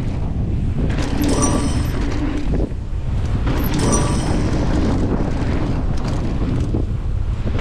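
Wind buffeting the camera microphone on a mountain bike descending a dirt trail at speed, with the rumble of the tyres and bike over the ground. Brief higher-pitched buzzes twice over it.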